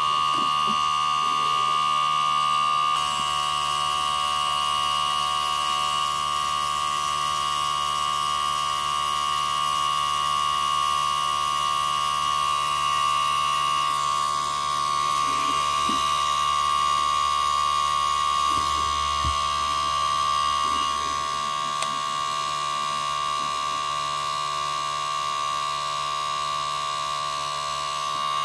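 O.S. FS-20 four-stroke glow model engine running steadily at constant speed, a high-pitched buzzing drone with a strong steady tone.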